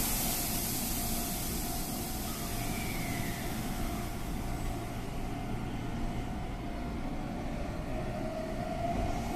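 Meitetsu 3100 series and 9100 series electric train sets pulling out of a station. A steady electrical tone sounds while the train stands, then about eight seconds in the motor whine starts rising in pitch as the train gets moving.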